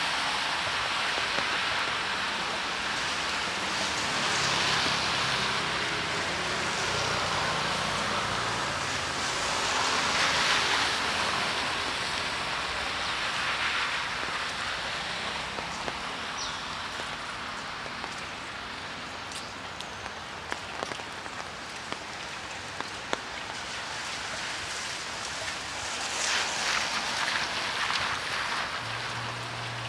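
Steady rain falling, an even hiss that swells briefly a few times, with a few sharp drip taps about two-thirds of the way through.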